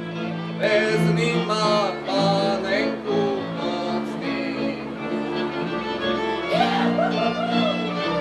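Slovak folk string band playing: fiddles over bowed bass strings, with voices singing along.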